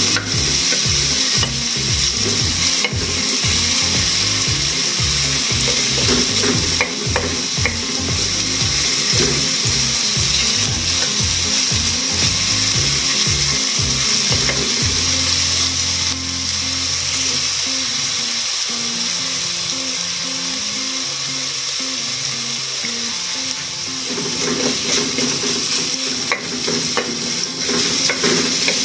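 Minced garlic sizzling in hot oil in a large aluminium pot: a steady frying hiss, with occasional scrapes and taps as a spatula stirs it.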